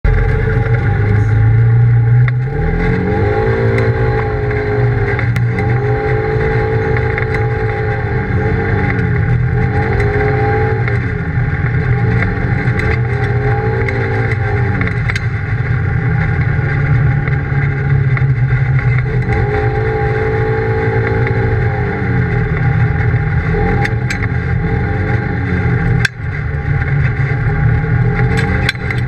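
Polaris RZR side-by-side's engine running under way on a dirt road, its revs climbing and dropping again every few seconds with the throttle. A few sharp ticks cut through now and then.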